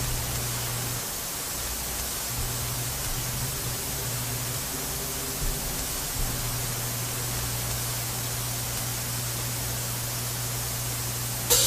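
Steady hiss of television static with a low hum underneath. Drums cut in right at the end.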